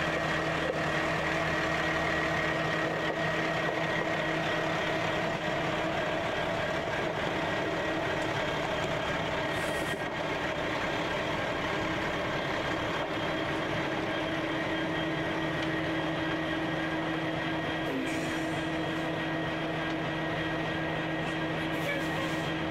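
Diesel-electric locomotives idling: a steady, unchanging engine drone with a constant hum.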